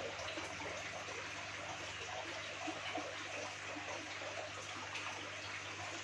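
Aquarium water bubbling and trickling steadily from the tank's circulation, over a low steady hum.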